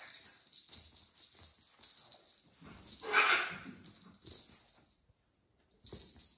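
Small bells jingling in quick, uneven shakes, pausing briefly near the end, with a short harsh animal call about three seconds in.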